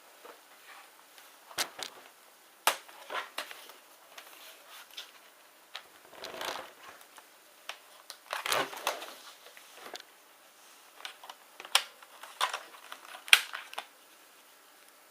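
Irregular clicks, taps and short scrapes of a laptop's hard plastic case and small parts being handled and worked apart, with a few sharper cracks and quiet gaps between them.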